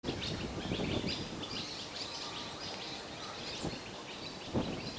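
Many small birds chirping and twittering over a low, uneven rumble.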